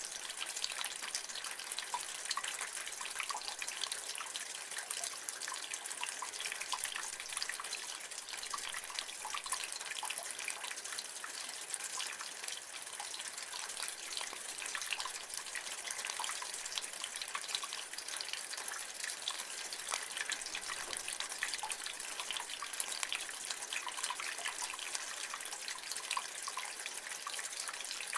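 Rainwater running and splashing from a rain gutter, a steady stream with dense dripping and spattering.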